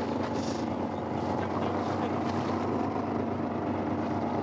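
Fishing boat's engine running steadily: an even, unchanging hum.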